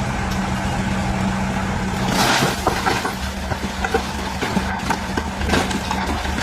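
DH17C3 bulldozer's diesel engine running steadily, with scattered short knocks and a brief rush of noise about two seconds in.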